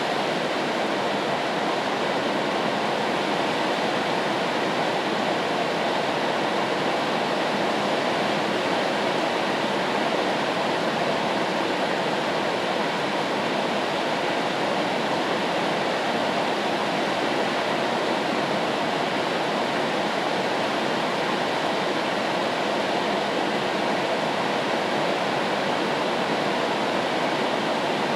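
Steady rain white noise: an even hiss with no single drops or pauses standing out.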